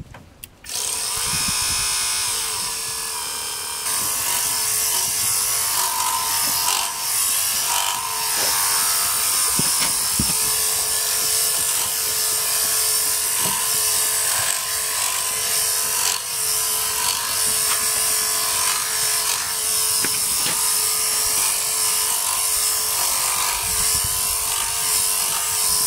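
Handypiece Pro battery-powered sheep clipper starting about a second in, then running steadily with a constant whine as its cutter and comb clip dags and wool from around a sheep's tail.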